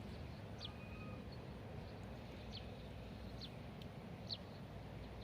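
A bird giving short, high, falling call notes, four of them about a second apart, over a quiet outdoor background hiss.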